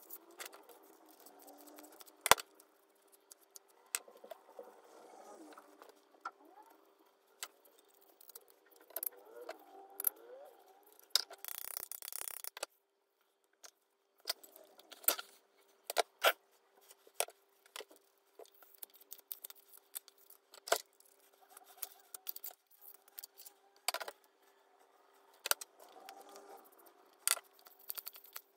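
Small metal parts and hand tools being handled at a workbench: scattered sharp clicks and clinks, with a short burst of hissing about eleven seconds in and a faint steady hum underneath.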